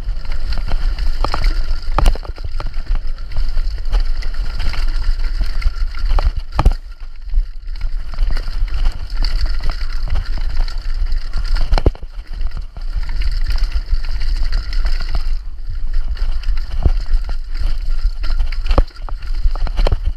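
Mountain bike descending a rocky downhill course at speed: wind buffeting the microphone as a steady low rumble, with tyres rolling over rock and dirt and frequent sharp knocks and rattles as the bike hits rocks.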